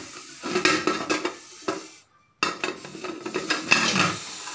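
Metal clinking and scraping of a pressure cooker lid being handled and settled on the cooker, in two bursts of clatter with a brief break between them. The lid's gasket ring and whistle have been removed so the cooker can be used as an oven.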